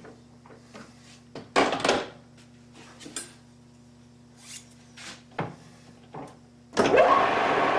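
Short metal clicks and scrapes as a part is handled in a metal lathe's three-jaw chuck, the loudest about one and a half seconds in. Near the end the lathe starts: its whine rises quickly as the spindle spins up, then it runs steadily.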